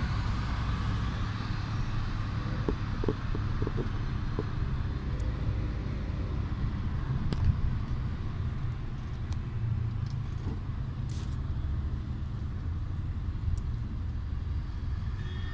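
Interior noise of a moving vehicle: a steady low rumble of engine and road noise, with a few faint clicks.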